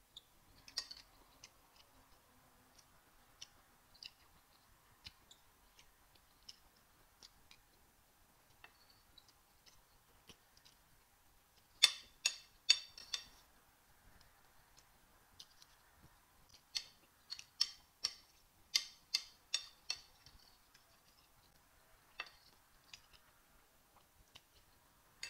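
Metal spoon clinking and scraping against a plate while scooping rice and beans: a quick run of sharp clicks about twelve seconds in and a longer run a few seconds later. Faint soft chewing clicks in between.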